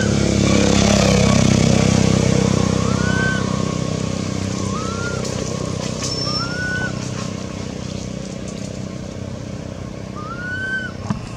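A motor vehicle's engine passes by. It is loudest in the first couple of seconds, then fades away. A bird gives a short arching call every couple of seconds, and there is a sharp knock near the end.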